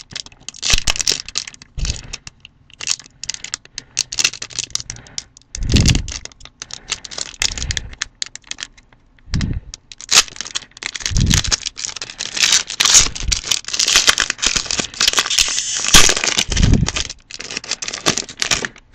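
Foil wrapper of a hockey card pack being torn open and crinkled by hand. The crackling is densest over the second half, with a few dull bumps from handling.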